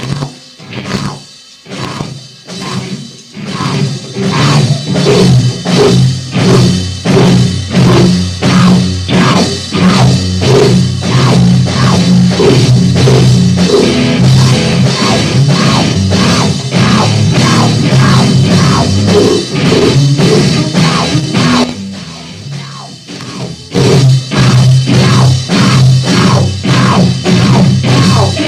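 A band playing noisy rock: drums hitting a steady beat, about two a second, over loud guitar, dropping away briefly near the end before coming back in full.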